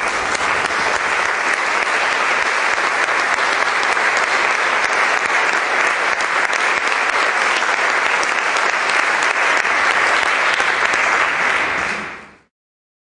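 Audience applauding in a reverberant concert hall, a steady dense clapping that fades out quickly near the end.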